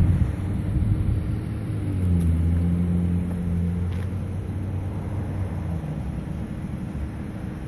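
2012 Chrysler 300's engine running with a low rumble; its note dips about a second in, holds steady, then fades about six seconds in.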